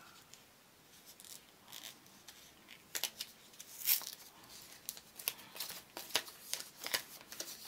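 A folded paper checklist leaflet being handled and opened out: faint, scattered rustles and light clicks, with a couple of sharper ones around three and four seconds in.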